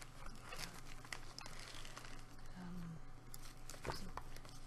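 Close-up crinkling and crackling with scattered sharp clicks: a blood pressure cuff being handled and wrapped around an arm.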